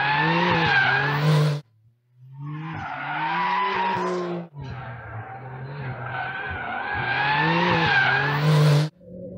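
Porsche 911 GTS (992) with its turbocharged three-litre flat-six pulling hard through the sports exhaust while its tyres squeal in a slide, the pitch wavering up and down. The sound cuts off sharply about a second and a half in, returns half a second later, breaks briefly again midway, and cuts off near the end.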